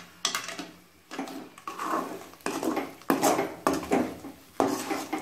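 Metal ladle scraping and knocking against a metal kadai while stirring thick, halwa-like rava kesari: a string of scrapes about one every three-quarters of a second.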